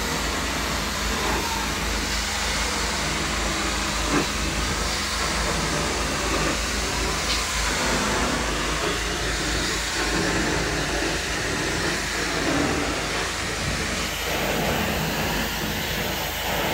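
Carpet extraction wand pulling water and air up out of the carpet: a steady hissing rush of suction with a low hum underneath. A single short click about four seconds in.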